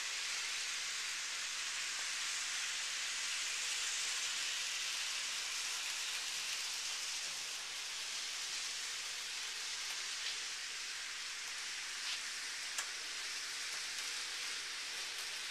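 Model freight train running on a layout loop: a steady high hiss of wheels and motor on the track. A few faint clicks come in the second half.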